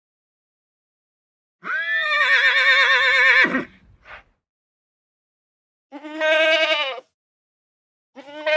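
Sheep bleating three times, each call with a quavering, wavering pitch. The first bleat is long, about two seconds. The second is shorter, and the third begins near the end.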